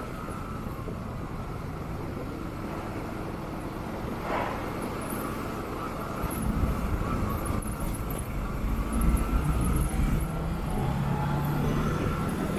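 Motorcycle engine running at low speed in slow city traffic, with road and traffic noise. It gets louder from about six seconds in.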